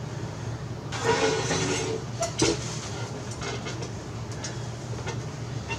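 Clothing rustling and a chair creaking and clicking as a man shifts in his seat and pulls at his T-shirt, with a louder burst of rustling about a second in and a few sharp clicks soon after, over a steady low hum.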